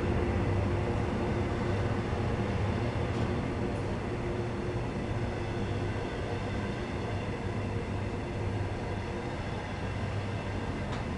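Long train of EWS bogie coal hopper wagons rolling past close by: a steady rumble and rattle of wheels on rail, with a low beat about once a second, easing off slowly as the train goes by.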